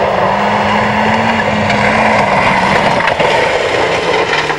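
Nissan Pulsar GTI-R rally car's turbocharged four-cylinder engine running hard as the car passes on a dirt stage, over tyre and gravel noise. The engine note holds, then drops away about three seconds in.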